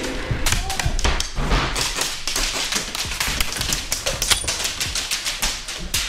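Airsoft skirmish inside a wooden building: a dense, irregular run of sharp taps and thuds from airsoft guns firing and hits close by.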